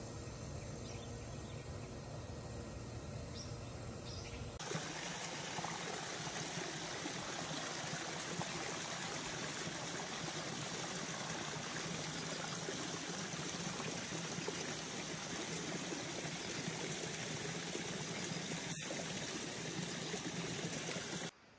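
Steady rushing hiss with no calls or other distinct events. About four and a half seconds in, a low hum gives way to a brighter, slightly louder hiss.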